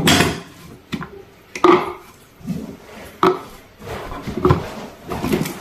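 Kitchen clatter as cut ginger is handled and put into a plastic jar: about six separate sharp knocks of knife, cutting board and jar, irregularly spaced.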